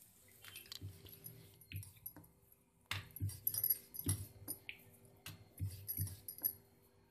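Wooden rolling pin rolling out a stuffed paratha on a stone slab. It makes a quick run of soft thuds and clicks, about two or three a second, getting louder and busier from about three seconds in.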